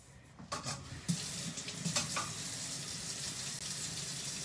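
Kitchen tap running water into the sink as a steady hiss that starts about a second in, after a couple of light clatters.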